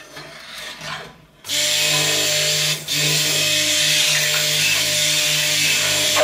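Stick blender switched on about a second and a half in and running steadily in soap batter, mixing it toward trace, with a brief dip just before the halfway point. Before it starts, faint clinks of stirring in the pot.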